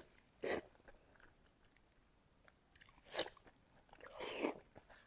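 Close-up mouth sounds of a person eating pork belly: chewing, in short bursts about half a second in and around three seconds, and a longer bout just after four seconds.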